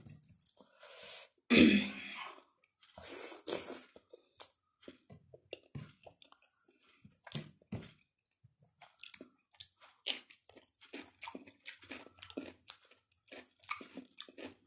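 A person chewing a mouthful of instant noodles close to the microphone, with many short wet mouth clicks and smacks. There are two louder rustling mouth sounds near the start.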